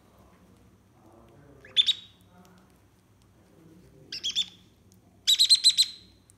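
African grey parrot chicks giving shrill, pulsed food-begging calls during hand-feeding: one short call about two seconds in, a quick run of three around four seconds, and a rapid string of about six near the end.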